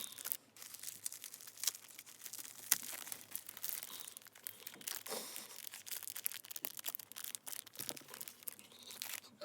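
Packaging being handled and torn open: dense, irregular crinkling and rustling with scattered sharp clicks.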